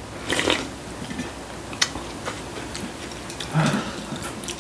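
Slurping hot broth from a bowl about half a second in, then eating noises with a few sharp clicks of chopsticks and bowls, and another slurp near the end.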